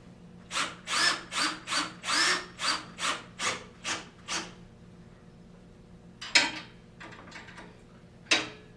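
A 1/2 inch wrench working a bolt's nut on an aluminum chaise lounge frame: about ten quick metallic strokes, roughly two and a half a second, each with a short squeak. Two single sharp knocks follow near the end.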